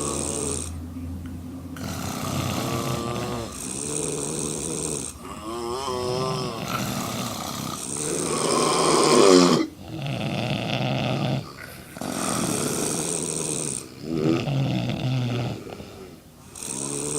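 Women snoring loudly through open mouths: about nine snores in a row, one every two seconds or so, with short pauses between, the loudest about nine seconds in.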